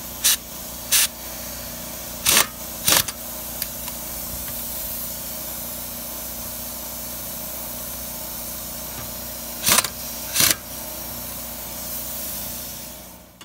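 Pneumatic impact wrench fired in six short bursts, in three quick pairs, running lug nuts onto a car wheel. The nuts are only being snugged, to be tightened once the car is on the ground. A steady hiss and hum runs underneath.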